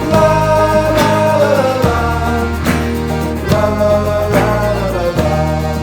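Background music: an upbeat acoustic song with guitar and a steady beat, in an instrumental break between sung lines.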